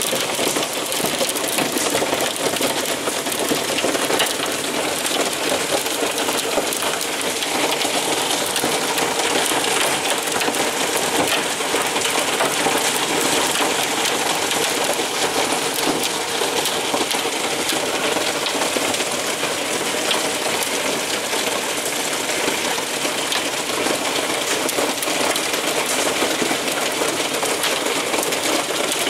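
Hailstorm: hailstones and heavy rain pelting down in a dense, steady clatter of small hard impacts.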